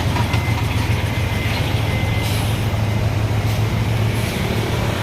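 Heavy diesel truck engine running steadily with a low, even hum, with a few faint short air hisses.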